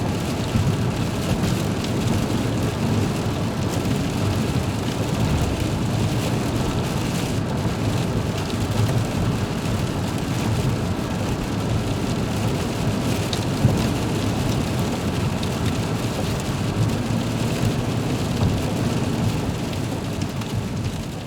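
Rain on a car windshield: a steady, dense patter of drops drumming on the glass, starting to fade out near the end.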